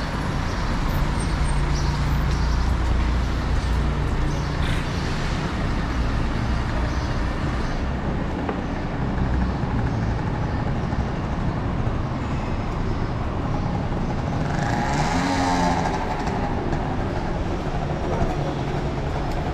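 Steady city street traffic: cars and delivery vans driving past, with engine hum. A vehicle passes close about three-quarters of the way through.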